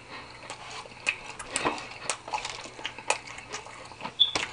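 Close-miked chewing of a quesadilla: wet mouth noises with many irregular lip smacks and clicks. A brief high squeak sounds about four seconds in.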